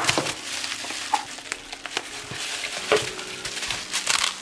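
Bubble-wrap package being handled, turned over and pressed flat by hand: plastic crinkling and crackling, with scattered sharp clicks, the loudest at the very start and about three seconds in.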